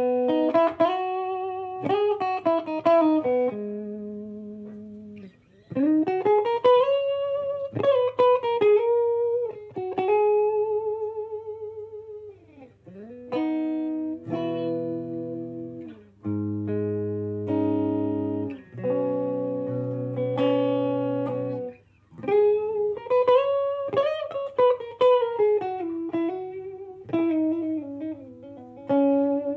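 Background guitar music: a lead melody of bending, wavering notes, with held chords over low bass notes in the middle stretch.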